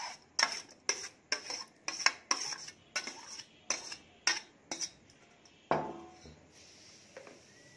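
A metal spoon knocking and scraping against a stainless steel bowl, about fifteen quick clinks over five seconds, as chopped potato and vegetables are tipped into a glass bowl. Near six seconds comes one louder clank with a short ring, as the steel bowl is set down on the table.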